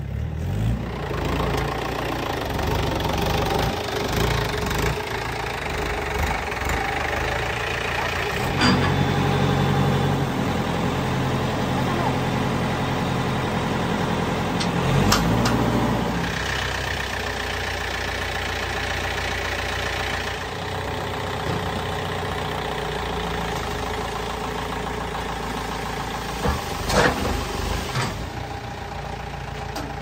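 Farm tractor's diesel engine running steadily while it drives the hydraulic tipper that lifts the trolley bed to dump its load of mud, with a few sharp knocks along the way.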